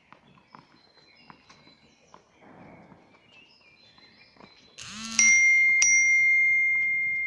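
A bright metallic ring, struck twice about half a second apart, its high tone fading slowly over a couple of seconds. Before it, faint bird chirps.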